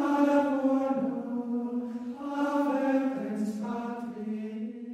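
Sacred chant sung on long held notes that step down in pitch, growing quieter near the end.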